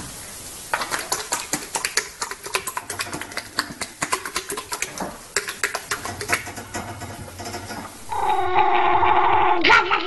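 A horse flapping and smacking its lips: a fast, irregular run of clicks and slaps lasting about eight seconds. Near the end a dog gives one long, steady-pitched howl.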